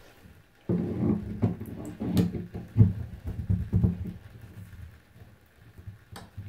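Handling noise of a metal adjustable spanner being brought in and fitted onto the headgear nut of a bath mixer tap: a stretch of scraping and knocking with sharp clicks, then a couple of light metal clicks near the end.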